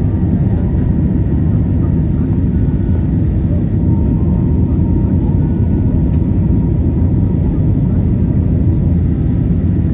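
Steady low cabin noise of a jet airliner in flight, heard from inside the cabin: the engines running and air rushing past the fuselage.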